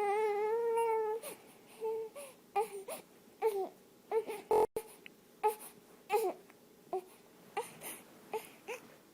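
Baby crying: one long wavering wail, then a run of short sobbing cries, one or two a second.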